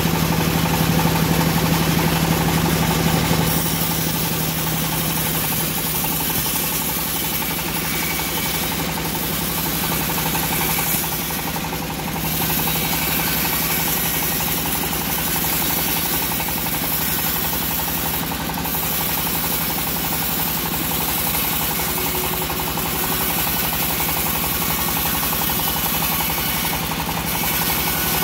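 Homemade bandsaw mill running, its blade ripping lengthwise through a teak log, with a steady mechanical drone that drops slightly in level a few seconds in.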